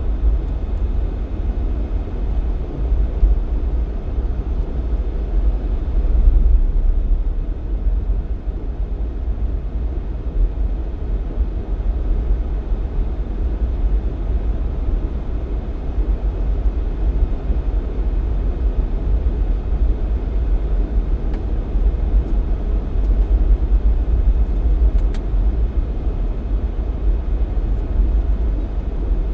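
Jeep Cherokee XJ under way on a snowy mountain highway: a steady low rumble of engine and road noise.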